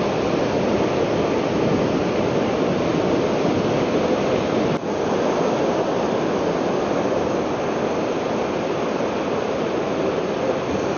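Ocean surf breaking and washing up the shore, a steady rushing noise, with a brief click about five seconds in.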